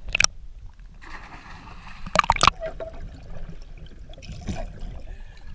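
Swimming-pool water gurgling and sloshing around a waterproof camera held at and just below the surface, muffled as if underwater, with a short loud splash a little after two seconds.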